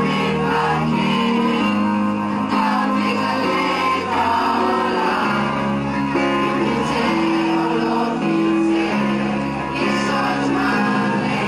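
Group of children and adults singing a song together, with instrumental accompaniment.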